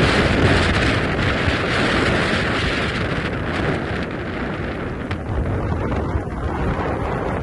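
Strong wind aboard a sailboat: gusts buffeting the microphone with a low rumble, and the sails flapping in the fresh breeze. A hissing rush of wind eases about halfway through.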